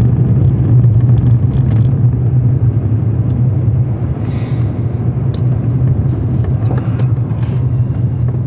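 Pickup truck driving, heard from inside the cab: a steady low rumble of engine and road noise.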